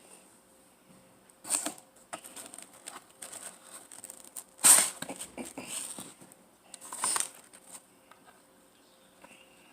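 Close-up eating sounds of pizza being chewed, with small wet clicks and crackles. Three louder noisy bites or crunches come a couple of seconds apart, the middle one the loudest.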